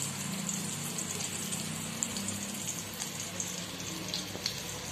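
Stuffed bell peppers shallow-frying in a little oil in a kadhai on low heat: a steady, gentle sizzle with small crackles.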